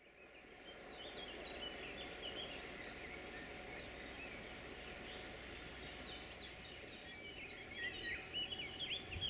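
Several small birds chirping and singing in quick, overlapping calls, busiest near the end, over a steady low background rush.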